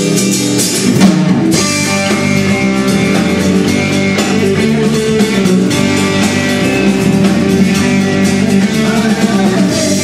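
Live rock band playing without vocals: strummed acoustic-electric guitar over bass and drum kit, at a steady tempo.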